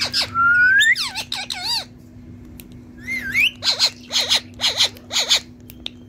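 Indian ringneck parrot calling: a long rising whistle, a quick chatter, another rising whistle, then about five short harsh squawks in a row. A faint steady hum sits underneath.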